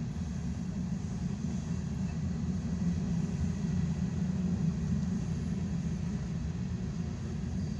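Loaded covered hopper cars of a freight train rolling past at a grade crossing: a steady low rumble of steel wheels on the rail.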